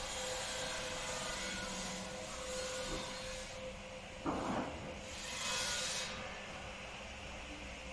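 Steady construction-site noise, a mix of machinery hum and hiss, with a short knock about four seconds in and a brief hiss about a second later.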